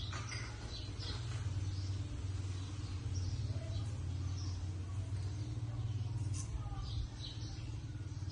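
Steady low hum with faint high chirps scattered through it.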